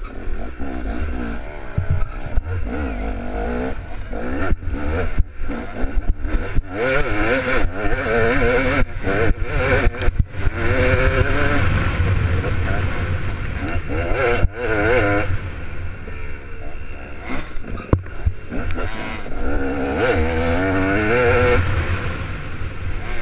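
Dirt bike engine heard from the bike itself, revving up and down as it accelerates and backs off along a rough off-road track, with many sharp knocks mixed in.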